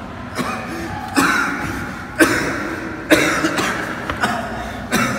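A young man coughing hard in a series of harsh coughs, roughly one a second.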